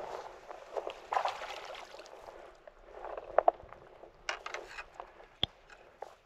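Water splashing and sloshing, with scattered clicks and knocks and one sharp click about five and a half seconds in.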